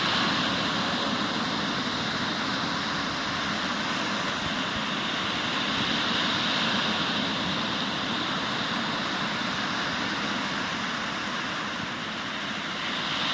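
Sea surf breaking on the shore, a steady rush of water that swells louder and eases off every several seconds.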